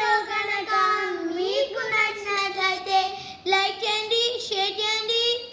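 A child singing, one voice in long held notes that glide gently up and down.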